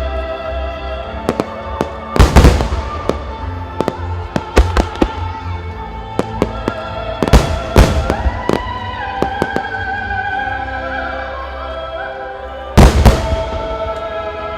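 Aerial firework shells bursting over music that plays throughout, with heavy booms about 2, 7.5, 8 and 13 seconds in and many smaller sharp cracks between them.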